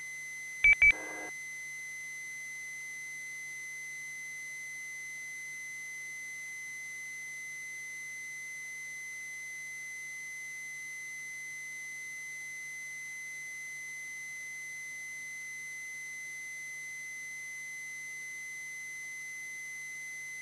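Two-way radio channel audio: a quick double beep about a second in, as a transmission ends, then a steady faint high-pitched tone over a low hum on the open channel.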